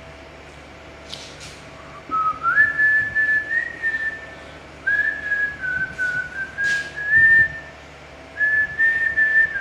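A person whistling a tune: held notes that step up and down, in three phrases starting about two seconds in, with a few faint clicks in between.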